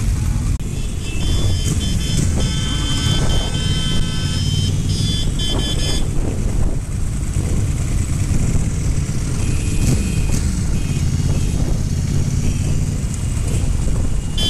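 BMW motorcycle riding in a pack of other motorcycles: steady engine rumble with wind and road noise on the bike's camera. Several high steady tones come and go in the first few seconds and again about ten seconds in.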